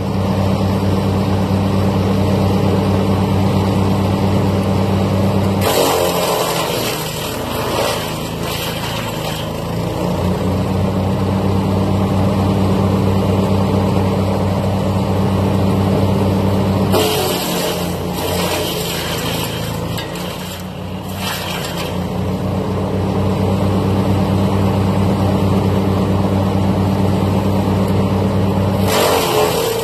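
Yardmax wood chipper's engine running steadily, broken three times by loud shredding as pine branches are fed in: about six seconds in, around the middle, and again at the very end. Each time the engine note dips under the load.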